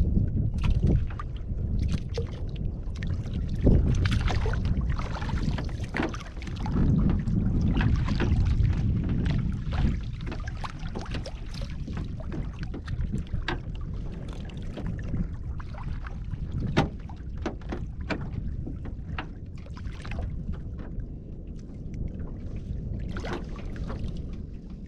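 Choppy water slapping against a small wooden boat's hull, with wind buffeting the microphone and scattered sharp knocks.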